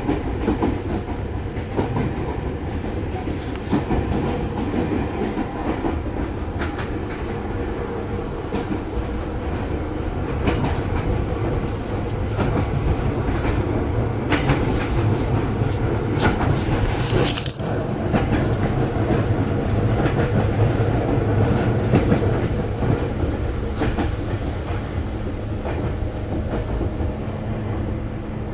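Seibu 2000 series electric train running, heard from inside the carriage: a steady low rumble with wheels clicking over rail joints. The clatter grows busier for a few seconds about halfway through.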